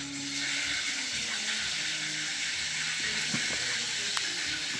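A steady rushing hiss, like running water, holding level throughout.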